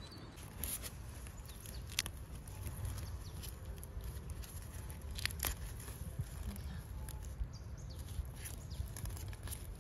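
Rubber-gloved hand handling oyster mushrooms on a log: soft rustling with a few sharp clicks, one about two seconds in and a quick pair near the middle, over a low steady rumble.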